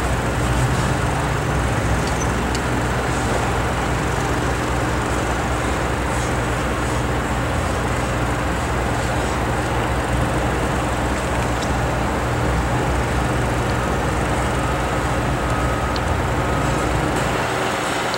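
Diesel locomotive engine running steadily close by, a deep, even drone with exhaust rumble and no change in pitch.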